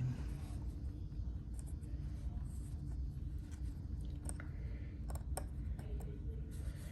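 Axiom Apache fidget slider worked by hand: faint rubbing with a handful of light, irregular clicks from its plates over a steady low hum.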